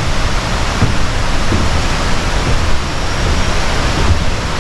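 Steady, loud rush of falling water: an even hiss across all pitches with a low rumble underneath.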